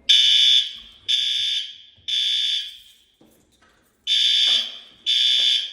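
Building fire alarm horns sounding the temporal-three evacuation pattern: three loud, high-pitched half-second blasts about a second apart, a pause, then the next group of blasts begins. The system is in alarm from a heat detector set off during testing.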